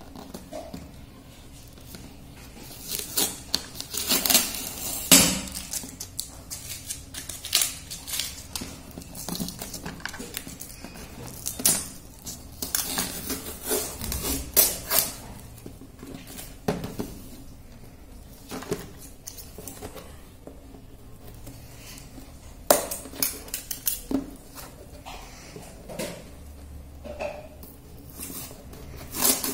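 Plastic packing tape being picked at and ripped off a cardboard parcel in short, irregular tearing strokes, with the cardboard box being handled and turned.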